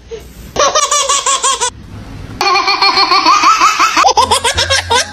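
Babies laughing in quick, rhythmic strings of giggles, with a short pause about two seconds in.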